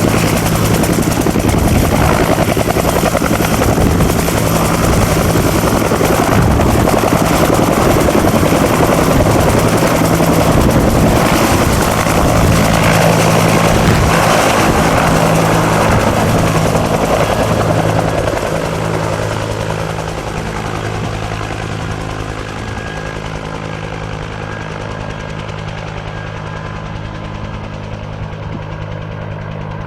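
Bell UH-1 Huey helicopter's Lycoming T53 turbine and rotor running loud and steady, with a low steady hum under a broad hiss. About eighteen seconds in the sound eases off and the high hiss fades, settling at a lower level.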